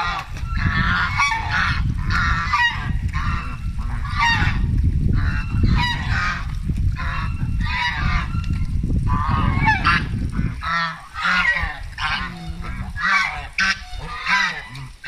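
Domestic geese honking over and over, loud rough calls one after another about every second, with a steady low rumble underneath that stops about ten seconds in.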